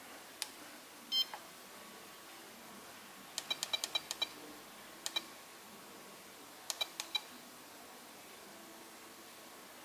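FlySky FS-i6X radio transmitter giving a short beep at each key press as its setup menus are scrolled. The beeps come in quick runs: a single one about a second in, about seven in a row near the middle, then two, then four.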